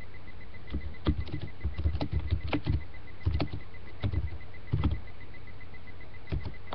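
Irregular clusters of soft thumps and clicks from a computer being handled close to its microphone, as keys or the mouse are worked to start a song. They come in short groups from about a second in until about five seconds, with one more near the end, over a steady electrical hum.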